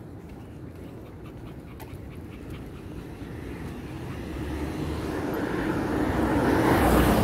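A small puppy panting, while a rushing noise swells over the last few seconds and is loudest near the end.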